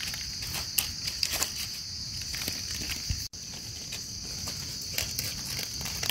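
Steady high-pitched insect chorus with irregular crunches of footsteps in dry leaf litter; the sound drops out for an instant about halfway.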